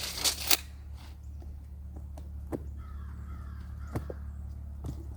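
A bird, crow-like, calling faintly about three seconds in, with a few sharp snaps or clicks over a steady low hum.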